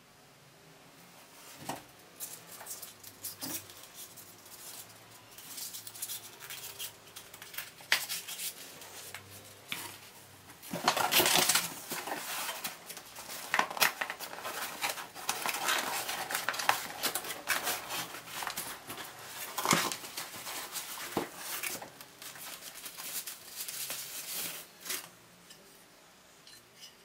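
Cardboard packaging being handled during unpacking: rustling and scraping with scattered sharp clicks and knocks as boxes and parts are lifted out, and a longer burst of rustling about eleven seconds in.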